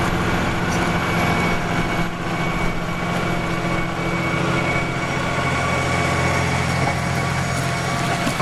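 Claas tractor's diesel engine running steadily under load as it pulls a Kverneland plough.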